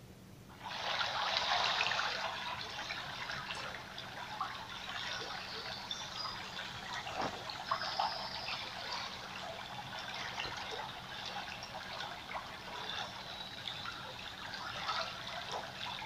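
Water trickling and bubbling with many small crackles. It starts about a second in, loudest at first, then keeps on steadily.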